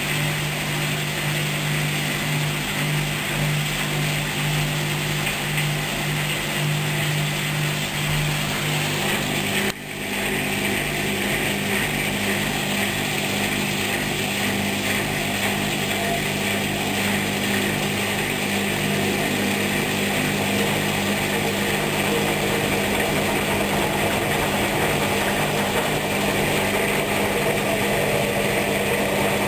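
Hoover washing machine running a wool-programme cycle: a steady motor hum over a constant whirring, with a short break about ten seconds in, after which the hum settles at a higher pitch.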